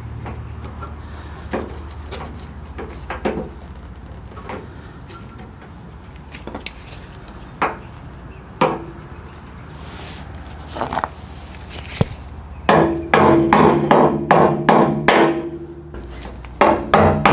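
Sending-unit lock ring on a new steel gas tank being driven around with a screwdriver to tighten it: scattered light knocks at first, then, about two-thirds in, a fast run of loud metal strikes, each leaving the tank ringing.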